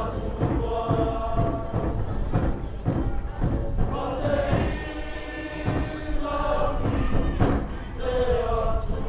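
Cook Islands kapa rima action song: a large group singing together in chorus over a steady rhythmic beat.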